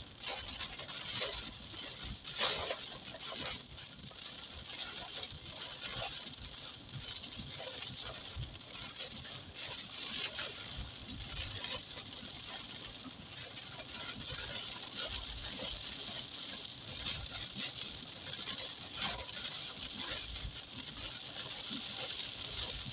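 Heavy rain pattering on a moving car's windshield and roof, heard from inside the cabin as a dense crackle of drops, with a low road rumble underneath.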